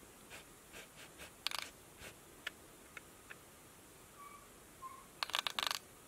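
Light clicks and taps of a cat's paw and claws against a laptop, with a quick rattle of clicks about five seconds in.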